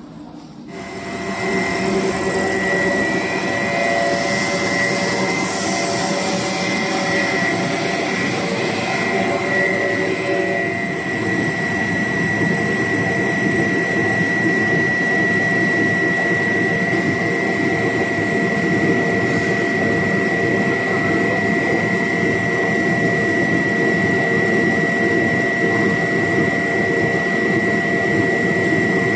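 Pet food extrusion line machinery running: a steady mechanical drone with a constant high whine, coming up about a second in.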